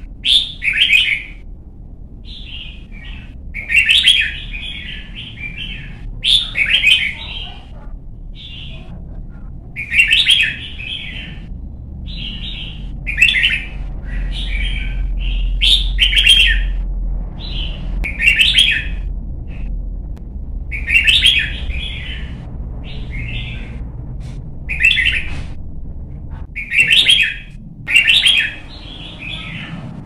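Red-whiskered bulbul singing: short, bright, chirpy phrases repeated every one to three seconds.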